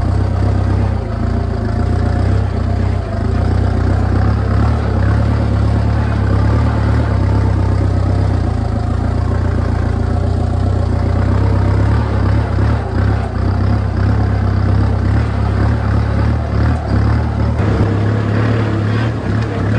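Kubota M6240 tractor's four-cylinder diesel engine running steadily under load while pulling a disc plough through dry soil, with a low, even hum.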